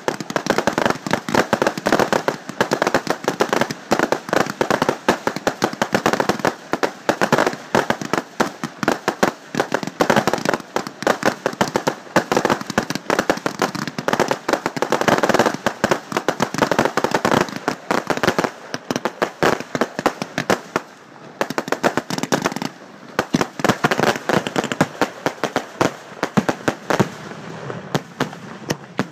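Fireworks going off in a dense, rapid barrage of crackling bangs and pops, thinning out a couple of seconds before the end.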